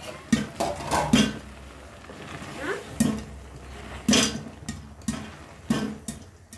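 Dishes and utensils clattering: about ten sharp knocks and clinks at uneven intervals, as crockery and pans are handled.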